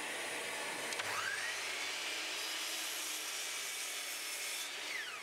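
Mitre saw switched on about a second in with a click, its motor whining up to speed, then cutting through a small block of red gum. Near the end the motor winds down with a falling whine. A steady hiss runs underneath.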